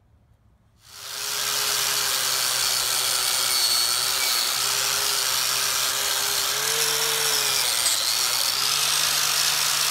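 Electric angle grinder with an abrasive cleaning disc starting up about a second in and running steadily against the cast-iron center section of a Ford 8.8 axle, scuffing its surface clean. Its motor pitch sags for a moment about eight seconds in, then recovers.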